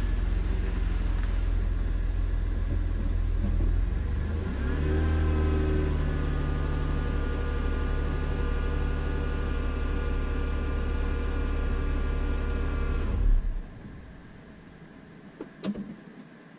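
Shop vacuum motor running with a steady whine; its pitch rises about five seconds in, then it shuts off abruptly near the end, followed by a few light clicks.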